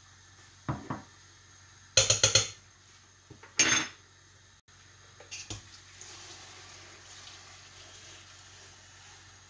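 Metal spoon clinking against small ceramic bowls and a stainless steel cooking pot, with a quick run of clinks about two seconds in and another about a second later. From about six seconds in, a steady hiss of water being poured into the pot.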